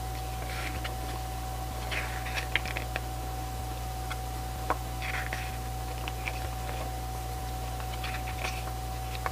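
Paper mini poster being unfolded and handled: soft rustles and crinkles in short spells with a few light clicks, over a steady electrical hum with a faint high tone.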